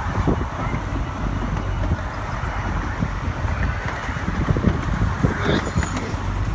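Miniature ride-on train carriages rolling along the track, a steady rumble with irregular small knocks and clatters from the wheels, with wind buffeting the microphone.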